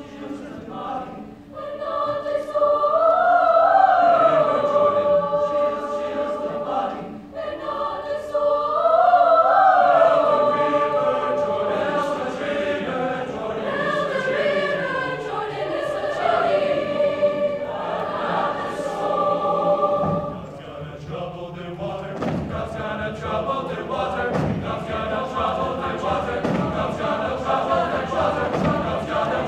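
Large mixed choir singing in harmony, holding long notes. About two-thirds of the way through, conga hand-drum strokes begin a beat under the voices.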